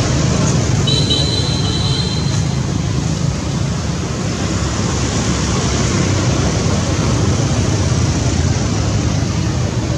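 Steady loud outdoor background noise, an even rushing hiss over a low rumble. About a second in, a brief high tone sounds for under two seconds.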